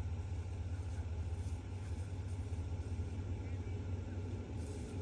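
A heavy engine running with a steady low rumble.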